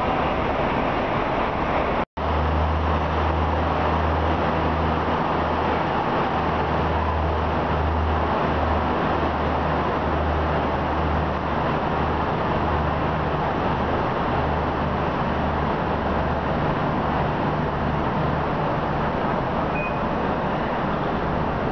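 Steady din of diesel trains idling at the platforms under a station roof, with a low engine drone. The sound drops out for an instant about two seconds in.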